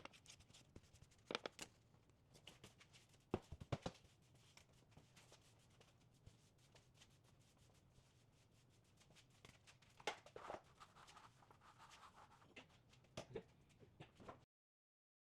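Near silence: faint room tone with scattered soft clicks and knocks, and the sound cuts out completely near the end.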